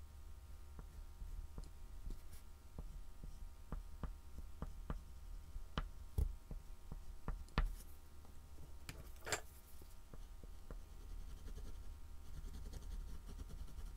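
Soft oil pastel stick scratching and tapping on a black-painted MDF board in short, irregular strokes, with a longer scrape about nine seconds in. A steady low hum runs underneath.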